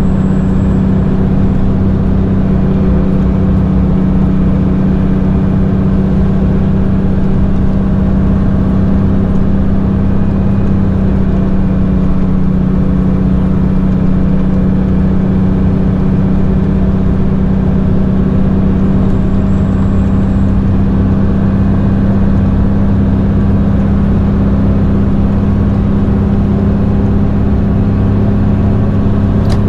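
Road train truck's diesel engine running steadily at a constant pitch at highway cruising speed, heard from inside the cab, with tyre and road noise.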